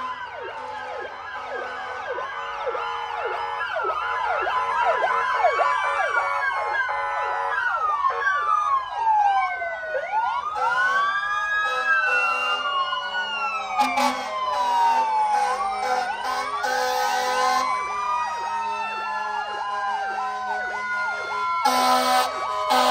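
Several fire trucks' sirens sounding at once, overlapping wails rising and falling, with fast yelps in the first few seconds. A loud truck air-horn blast starts near the end.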